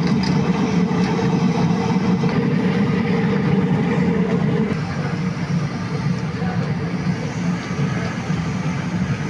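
A steady low engine-like hum over general street noise, with no clear break or single event.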